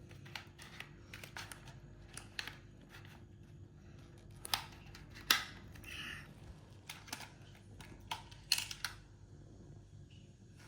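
Irregular clicks and knocks of plastic Hot Wheels track pieces and toy cars being handled, a few louder clacks among many light ones.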